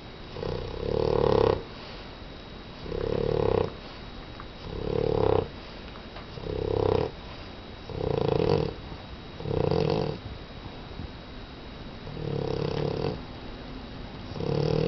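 Boston terrier snoring in its sleep: about eight loud snores in a steady rhythm, roughly one every one and a half to two seconds, with one longer pause about two-thirds of the way through.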